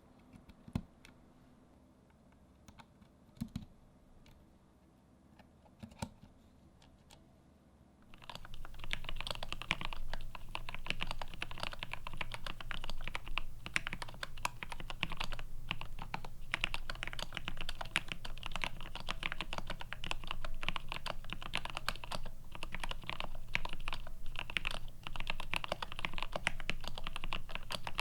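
Continuous fast typing on a mechanical keyboard with Gateron Ink V2 linear switches on a plateless PCB-mount board with GMK keycaps, starting about eight seconds in after a few faint, scattered clicks.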